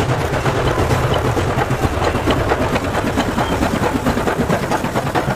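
Steam locomotive under way: a dense, steady run of exhaust chuffs and rail clatter.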